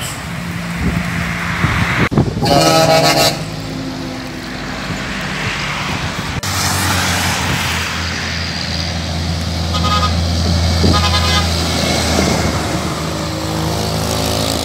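Highway traffic with trucks' diesel engines passing. A loud truck horn blast comes about two seconds in and lasts about a second, and a second, fainter honk comes about ten seconds in over the steady low drone of a passing truck's engine.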